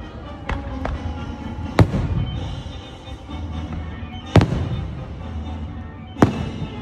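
Aerial firework shells bursting: a string of sharp bangs one to two seconds apart, the loudest about two, four and a half and six seconds in, each trailing off in a low rumbling echo, with music playing underneath.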